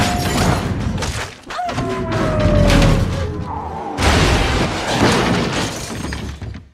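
Action-film sound mix: a music score under heavy thuds, booms and shattering, with a sudden loud crash of metal and debris about four seconds in.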